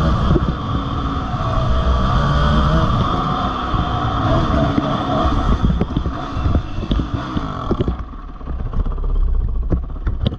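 Dirt bike engine running as the bike rides along, easing off and getting quieter about eight seconds in as it slows, with a few short knocks near the end.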